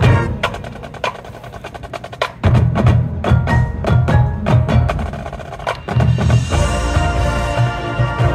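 High school marching band playing: for the first couple of seconds a quieter run of rapid, sharp percussion clicks, then the full band with brass and drums comes back in loud about two and a half seconds in, ending on held chords.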